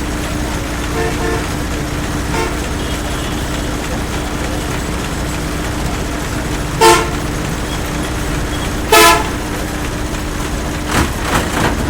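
Street traffic ambience with a steady rumble and hum, broken by two loud vehicle horn honks a couple of seconds apart, the second a little longer than the first.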